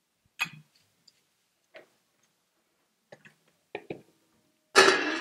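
Scattered clicks and knocks of cups, containers and utensils being handled on a tabletop, with one sharp knock about half a second in. A louder, longer clatter starts near the end.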